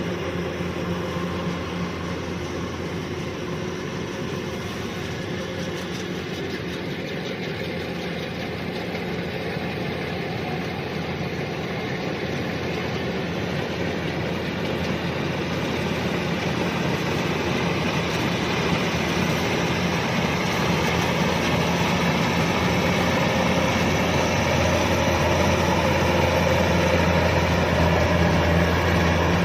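Kubota DC-105X combine harvester running steadily: a constant low engine hum over a broad even machine noise, growing gradually louder through the second half.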